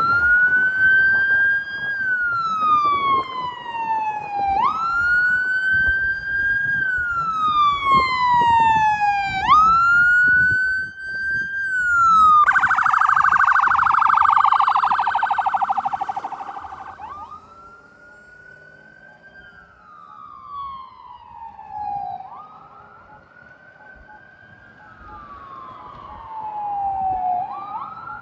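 Ambulance siren sounding a wail that rises quickly and falls slowly about every five seconds. About halfway through it switches for a few seconds to a rapid yelp, then goes back to the wail, now much fainter.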